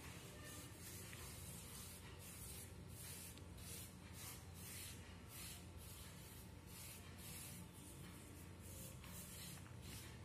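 Faint, repeated soft swishes of a palm rubbing a ghee and rice-flour paste over rolled chapati dough, a few strokes a second.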